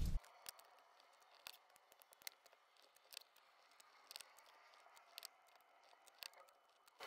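Faint handling noise of hands wrapping electrical tape around a row of C batteries: a scattered handful of small clicks and rustles, about one a second.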